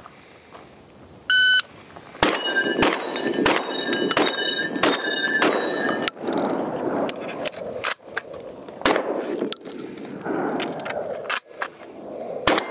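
A shot-timer beep about a second and a half in, then a fast string of about six 12-gauge Beretta A300 Ultima Patrol semi-auto shotgun shots with steel targets ringing, followed by a few more shots spaced out during the reloads.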